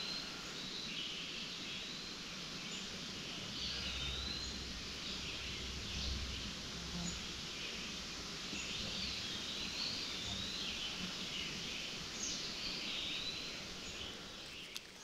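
Songbirds singing short, warbled whistled phrases repeated every second or two over a steady outdoor hiss, with a faint low rumble about four to seven seconds in.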